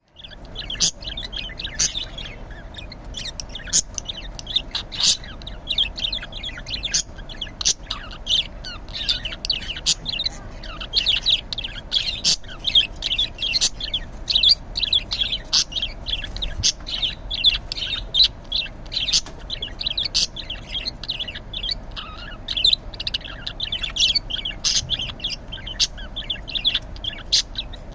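Budgerigar chattering: a continuous stream of rapid chirps and warbles, broken by sharp, short high calls.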